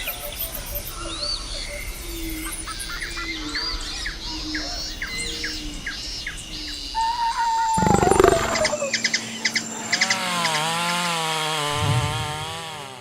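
Tropical rainforest soundscape: many birds chirping and whistling over each other. About seven seconds in comes a louder call that falls in pitch, and near the end a wavering, repeated call.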